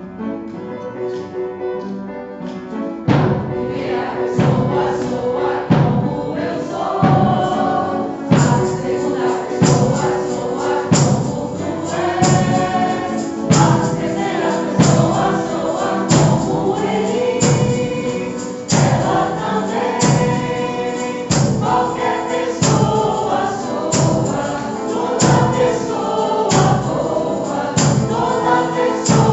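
Group of voices singing a song with percussion; a steady drum beat comes in about three seconds in.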